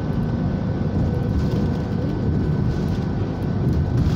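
Steady road noise inside a car cruising at highway speed: a low rumble of tyres, engine and wind, with a faint steady high whine.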